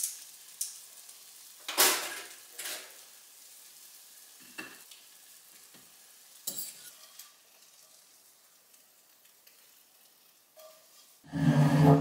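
Table knife scraping and spreading avocado onto toast, with utensils knocking against a ceramic plate and bowl: a few separate scrapes and clicks. Near the end comes a louder, longer sound with a low steady pitch.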